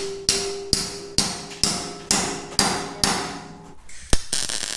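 Hammer striking steel on the wrecker's boom, about two blows a second, each blow ringing; the blows stop near the end. A sharp click then follows, and a steady crackling hiss of the welder starting.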